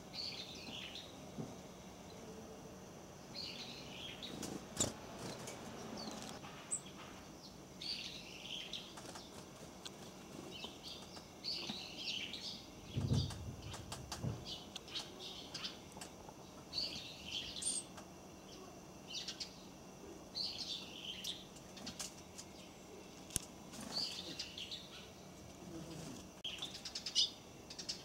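Small birds chirping in short bursts every second or two, with scattered sharp taps from a great tit hammering a seed open with its beak. A dull low thump comes about halfway.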